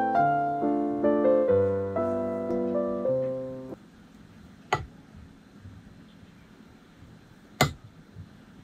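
Soft solo piano music that stops a little over a third of the way in, followed by two sharp clinks of a spoon against dishware, the second one louder, as curry sauce is spooned out of a glass bowl.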